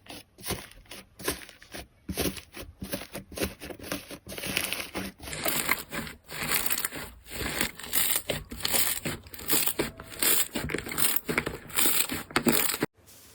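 Crunchy slime being squeezed and pressed by hand, giving dense rapid crackling and popping. It grows louder and crisper about five seconds in and cuts off abruptly near the end.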